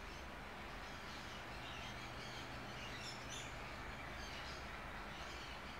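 Quiet room tone: a steady low hum and hiss, with faint high chirps scattered through the middle.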